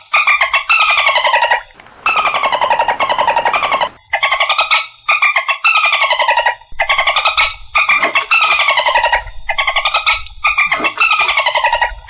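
Dolphin calls: a string of pulsed calls made of rapid clicks, each about a second long and falling slightly in pitch, with short breaks between them.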